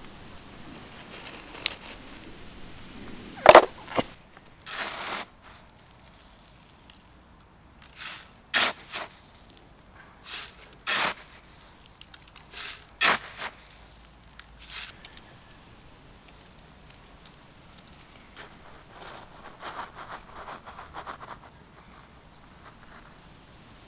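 A series of short scrapes and crackles, the loudest about three and a half seconds in, then softer rustling near the end: gravel ballast being scraped and pushed by gloved hands around a model railway signal's base.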